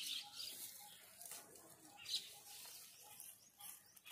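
Faint short bird calls repeating in the background, over the crackle of dry fallen leaves being stepped through, loudest about two seconds in.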